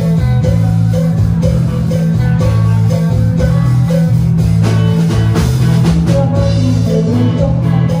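Loud amplified dance music with guitar, heavy bass and a steady beat.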